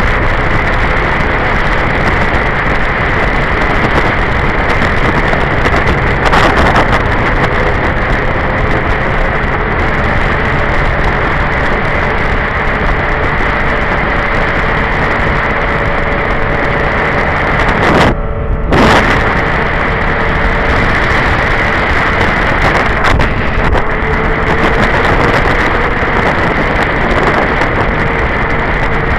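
Wind buffeting the microphone over a Honda sportbike's engine running at steady highway speed, its tone drifting slightly in pitch. The sound dips briefly about two-thirds of the way through.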